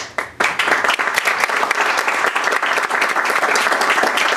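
Audience applauding: a few separate claps, then within about half a second dense, steady clapping from many hands.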